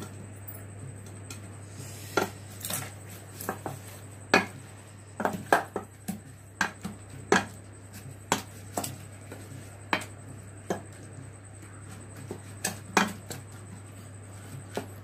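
A wooden dal masher pounds and mashes cooked tomatoes and green chillies in a small aluminium pot. It makes irregular sharp knocks against the pot, about one or two a second.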